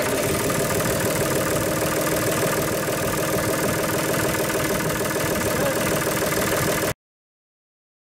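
John Deere 5045E tractor's diesel engine idling steadily just after starting, heard close up in the open engine bay; the start succeeds once the new thermostat sensor is fitted. The sound cuts off abruptly about seven seconds in.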